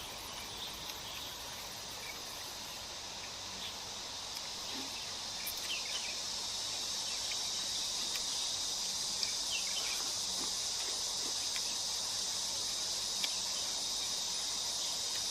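Steady, high-pitched chorus of insects, growing slightly louder, with a few faint clicks over it.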